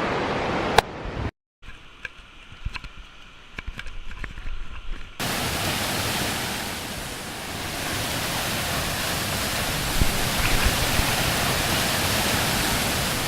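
Waterfall rushing, a steady roar of falling water. It drops out sharply about a second in and gives way to a quieter stretch with scattered clicks and knocks. The roar returns, loud and steady, about five seconds in.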